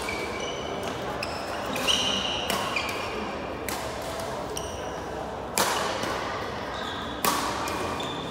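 Badminton rally: rackets striking the shuttlecock with sharp cracks, three loud ones about two, five and a half and seven seconds in, among short high squeaks of court shoes on the hall floor.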